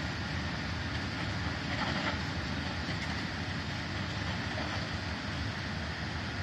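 H.F. Wiebe track-construction train, box wagons followed by an RMW 1500 ballast-cleaning machine, rolling past: a steady rumble of wheels on the rails with a continuous higher rolling noise over it.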